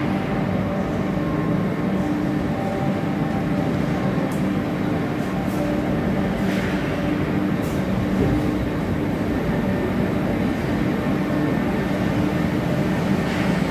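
Steady drone of industrial machinery running, with a low hum and a few faint ticks.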